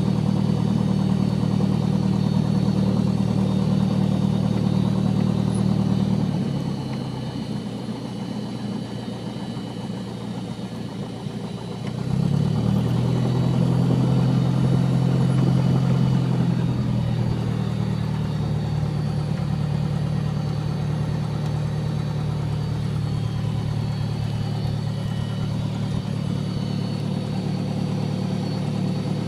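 Small high-wing plane's engine running at taxi power, heard from inside the cabin. It is throttled back about six seconds in, opened up again around twelve seconds in, then eased off a little and held steady.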